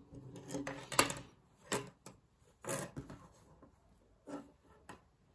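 Rustling and clicks of hands handling and smoothing a thick knitted wool scarf on a tabletop, in several short separate bursts, the sharpest about a second in.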